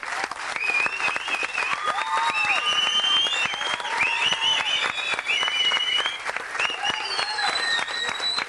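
Audience applauding, with cheering shouts and whoops rising and falling over the clapping.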